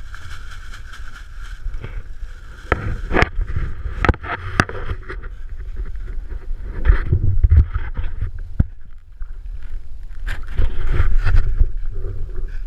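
Sit-on-top kayak being paddled, heard close up from a camera on the boat: a steady low rumble with water sounds and a series of sharp knocks against the plastic hull, the densest about three to five seconds in.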